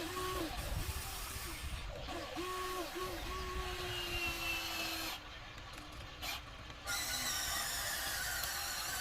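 Small electric gear motors of an RC excavator whining in a series of short runs, each rising in pitch, holding and dropping away, with one longer steady run in the middle. About seven seconds in a louder, higher, rougher whine sets in.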